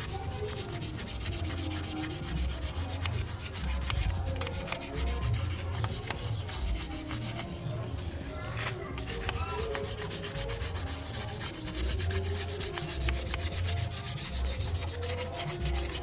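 Toothbrush bristles scrubbing back and forth over a wet, scale-crusted motorcycle engine casing in rapid strokes, working off stubborn crust loosened by a chemical remover. There is a short pause about halfway through.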